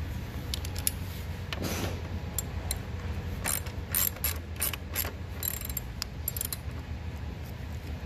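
Hand ratchet clicking as it backs out T30 Torx screws: scattered clicks at first, then quick runs of pawl clicks from about three and a half seconds in.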